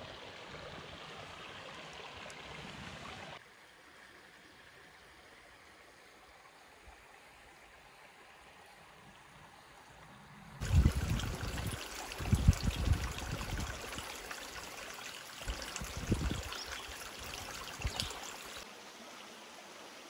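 Shallow creek water flowing and trickling over rock, a steady rushing hiss that changes in loudness at a few cuts. Through the louder middle stretch, from about halfway to near the end, irregular low rumbling bumps break in and are the loudest sounds.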